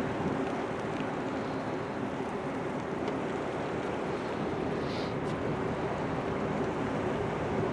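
Engine and machinery of the research ship R/V Paamiut running with a steady hum, mixed with wind on the microphone and the wash of sea water.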